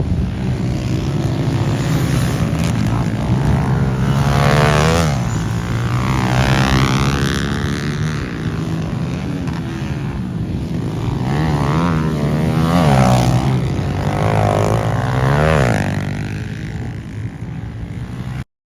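Pit bike engines revving on a motocross track, their pitch climbing and dropping again and again as the bikes accelerate, shift and ride past. The sound cuts off abruptly near the end.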